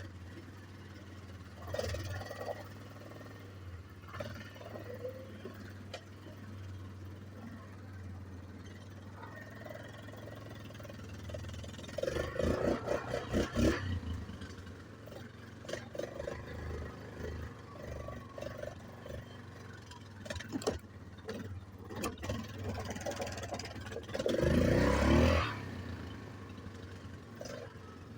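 Yamaha Grizzly 660 ATV's single-cylinder four-stroke engine running at idle, with two short bursts of revving, about twelve seconds and about twenty-four seconds in.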